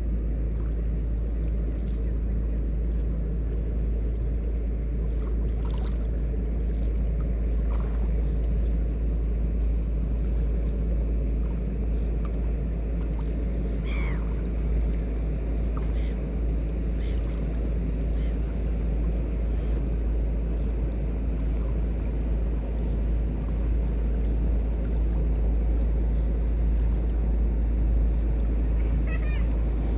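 River water washing and lapping with wind on the microphone, a steady low rumble underneath. A few faint short clicks, and a single falling chirp about halfway through.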